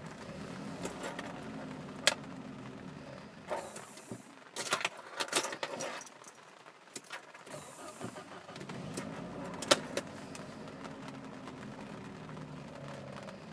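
Saab 900 Turbo's four-cylinder turbocharged engine idling roughly, with sharp clicks and rattling handling noises over it; a loud click about two seconds in, a cluster of knocks and rustles mid-way where the engine drops back, and another loud click near the ten-second mark.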